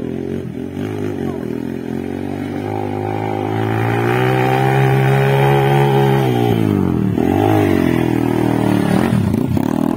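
Off-road motorcycle engine under throttle as the bike climbs a dirt track toward and past the listener, growing louder to a held, steady note mid-way. Near the end the engine note drops and rises again a few times with throttle changes.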